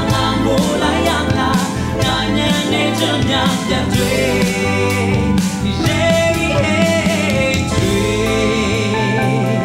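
A man singing a pop song into a handheld microphone over instrumental backing with a steady drum beat.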